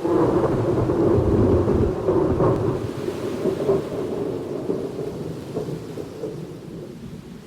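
A thunderclap that breaks in suddenly and rolls on as a long, loud rumble, slowly fading, with steady rain hiss underneath.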